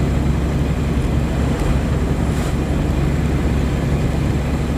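Dump truck's diesel engine running steadily under way, a low drone heard from inside the cab.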